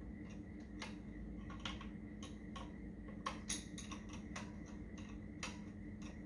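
Light, irregular metallic clicks and taps of a spanner and small fittings as a carburettor fuel inlet fitting is lined up and tightened, over a steady low hum.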